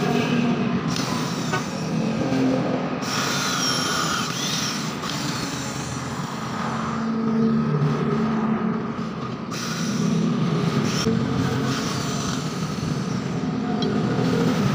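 Hand-held angle grinder running with its disc cutting into a flat steel strip, a steady grinding noise that changes character now and then as the disc bears on the metal.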